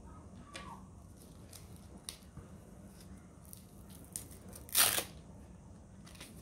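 Hook-and-loop fastener on a fabric mounting strap ripped apart once, a short, loud tearing rasp about five seconds in, after a few faint handling clicks and rustles.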